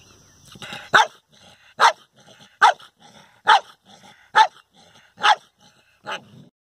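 A dog barking at its own reflection in a mirror: seven sharp barks at an even pace, a little more than one a second, the last one quieter.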